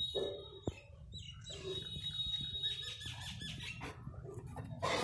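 High, thin whistling calls come and go over a low steady hum, then a German Shepherd puppy's sharp bark starts just before the end.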